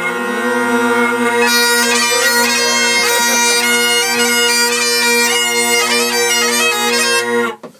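Bagpipes playing: the steady drones sound first, then the chanter plays a tune over them from about a second and a half in, and the whole stops abruptly just before the end.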